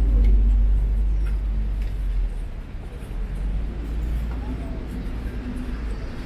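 A low rumble, loud for the first two seconds and then easing off, with faint voices in the background.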